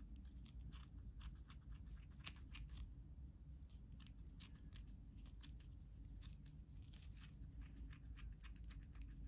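Small metal scissors snipping through wool yarn again and again, cutting open the wound loops of a small wool pompom: faint, quick snips, a few each second.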